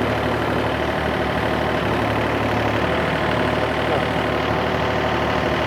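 Excavator's diesel engine running at a steady speed.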